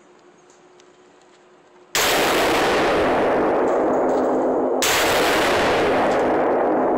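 Two single AR-15 rifle shots about three seconds apart, the first about two seconds in, each followed by a long ringing echo.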